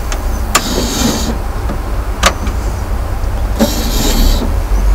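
OO gauge model locomotive running on freshly cleaned track, its small electric motor whirring, with a few sharp clicks along the way.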